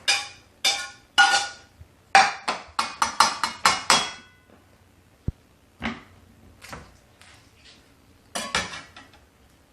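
Chopped peppers and onions being dumped into a pan, with a metal utensil clinking and knocking against the pan and board: a quick run of sharp clinks for about four seconds, then a few scattered knocks and a last cluster near the end.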